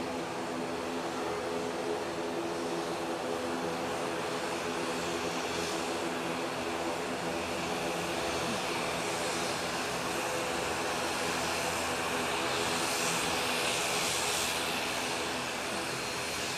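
Twin turboprop engines and propellers of an ATR 72-600 airliner running at taxi power: a steady drone with several held tones, swelling slightly about three quarters through as the aircraft comes close.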